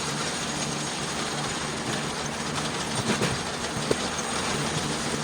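Eastonmade 37D wood splitter running, its engine humming steadily while the attached conveyor chain rattles, with a few short clunks about three and four seconds in.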